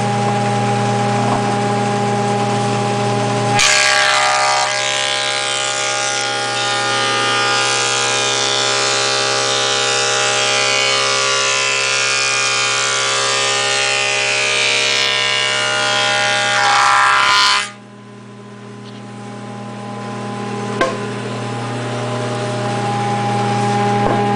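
Delta 22-101 planer with a 3 hp single-phase motor: the motor hums steadily, then about four seconds in the cutterhead bites into a rough-sawn cherry board. A loud, dense cutting noise lasts about fourteen seconds and stops abruptly as the board clears. The motor hum returns and grows steadily louder, with one sharp click a few seconds later.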